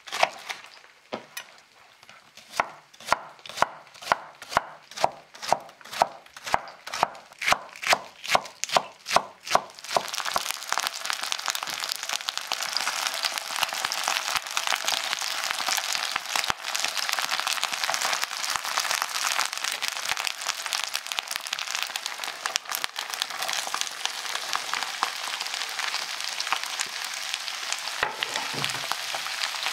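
A chef's knife chopping spring onions on a wooden cutting board, in steady strokes about two or three a second. About ten seconds in it gives way to halved chicory frying in a pan, a steady loud sizzle.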